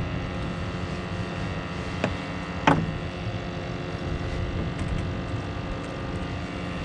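Steady motor hum with fine even tones, like an engine running, with two short knocks a little over two seconds in.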